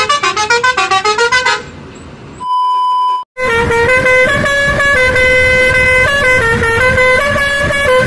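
Musical pressure horns playing tunes. First a fast run of short pitched horn notes. Then, after a brief break, a multi-tone horn holds long steady notes that step up and down in pitch.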